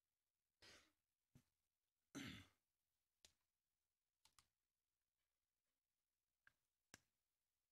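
Faint breathing close to a head-worn microphone, two breaths or sighs in the first couple of seconds, then a handful of small sharp clicks from a plastic water bottle being handled and its cap twisted open.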